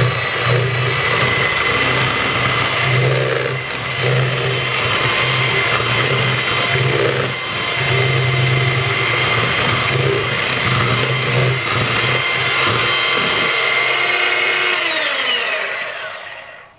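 Old electric hand mixer running steadily, its beaters whisking eggs and sugar in a bowl. Near the end it is switched off and its whine falls in pitch as the motor winds down.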